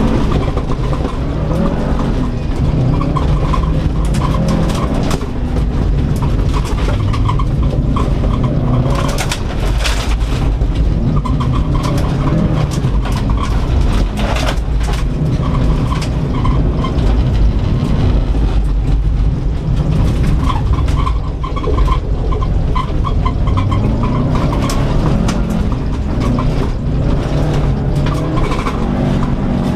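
2004 Subaru Impreza WRX STI's turbocharged flat-four engine heard from inside the cabin, revving up and falling back repeatedly as the car is driven hard on a dirt rallycross course, with tyre noise and clatters of stones and dirt striking the underbody.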